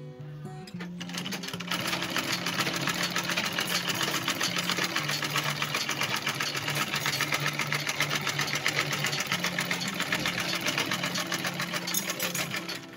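Sewing machine stitching a nylon webbing strap onto bag fabric, a fast, even run of needle clicks. It starts about a second in and stops just before the end.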